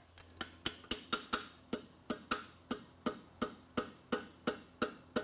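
Farrier's hand hammer striking a red-hot steel horseshoe on the horn of a steel anvil: a steady run of ringing blows, about three a second.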